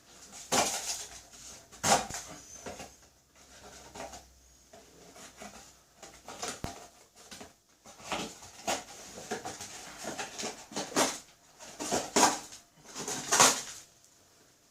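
Pocket knife with a serrated blade cutting, in a series of irregular rasping strokes with a sharp click about two thirds of the way through.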